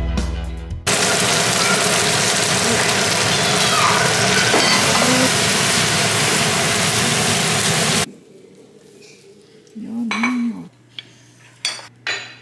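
Vegetables (broccoli, mushrooms, onion) sizzling loudly in a hot frying pan as they are stir-fried with a wooden spatula; the steady hiss cuts off suddenly about eight seconds in.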